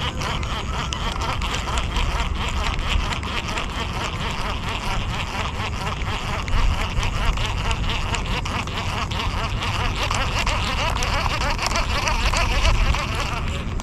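Wind buffeting an outdoor microphone, a steady low rumble, over a dense, fast crackling chatter.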